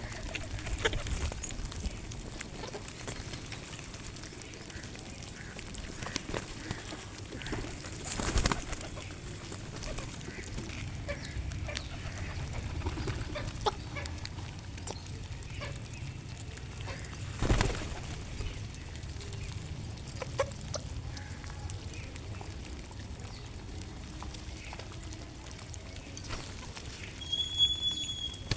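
Birds at a feeding spot: scattered soft clicks and taps with light calling, broken by two louder knocks about eight and seventeen seconds in. Near the end comes one short, clear, high chirp.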